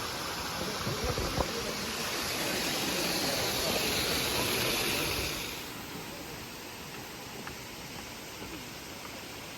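Steady rushing of flowing water, with faint voices in the background. The rush drops in level a little over halfway through.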